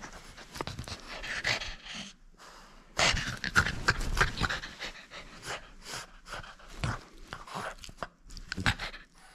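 French bulldog panting hard in irregular breathy bursts while tugging at a rubber chew toy, loudest about three seconds in.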